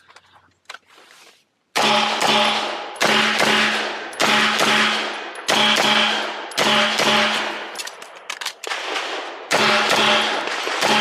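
Semi-automatic pistol firing in quick pairs of shots, double taps, with a pair about every second, each shot ringing out with a short echo. The first shots come about two seconds in, after a short quiet stretch.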